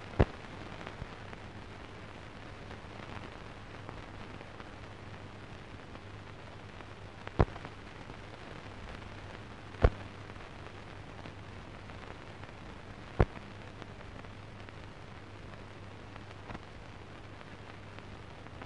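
Hiss and a low hum of an old newsreel film soundtrack with no speech, broken by four sharp clicks or pops spread through it.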